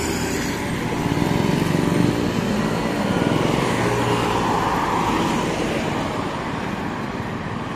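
Highway traffic: cars and motorcycles passing at speed, a continuous run of engine and tyre noise that swells as each vehicle goes by, loudest between about one and three and a half seconds in.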